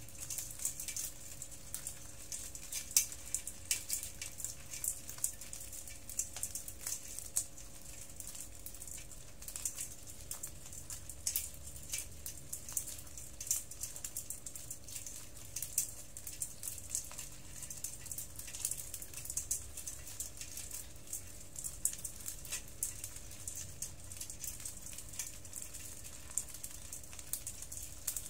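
Dozens of small hermit crabs crawling over one another in a basin, their shells and legs clicking and rattling against each other and the bowl in a dense, irregular patter.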